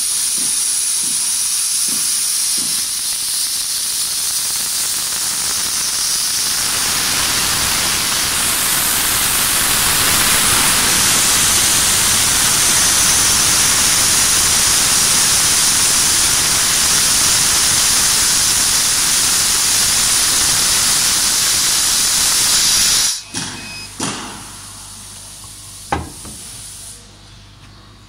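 CO2 laser cutter cutting through 20 mm wood, its air assist hissing loudly and steadily from the cutting head. The hiss cuts off suddenly about 23 seconds in, when the cut ends, and a couple of sharp clicks follow.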